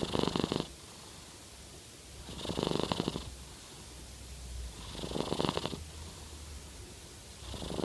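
Sleeping Norwegian Forest Cat purring and snoring: a loud, raspy, rapidly pulsing purr-snore with each breath, about every two and a half seconds, four times, with a faint low rumble between them.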